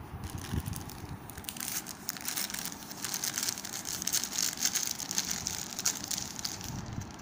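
Plastic courier mailer bag crinkling and crackling as it is handled and crumpled in the hand. The crackles thicken into a dense run from about a second and a half in until near the end.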